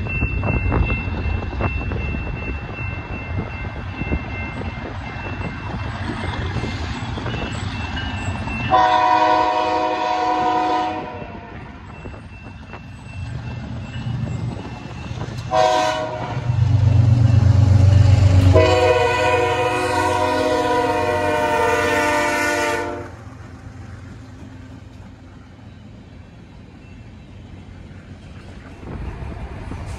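A BNSF diesel freight locomotive's air horn sounds for the crossing: a long blast about nine seconds in, a short one around fifteen seconds, and a longer blast from about eighteen to twenty-three seconds. The locomotive's engine rumbles loudly as it passes between the blasts, and the covered hopper cars then roll by with a quieter steady rumble.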